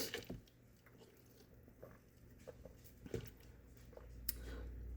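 Faint sipping and swallowing of a drink, with a few soft mouth clicks. A low hum comes in near the end.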